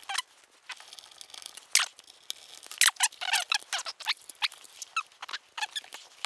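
Hard plastic of a DJI Phantom 3 Standard remote controller and a clip-on antenna extender panel with a metal wire bracket clicking, creaking and squeaking as they are handled and fitted together. The sounds come as short, irregular clicks and rubs, the loudest a little under 2 s and around 3 s in.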